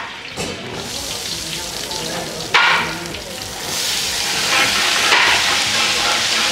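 Hot oil sizzling in a large kadai as a flat spatula stirs it. The sizzle grows louder and fuller a little past halfway, when chopped garlic is tipped into the oil. There is one short, sharp sound about two and a half seconds in.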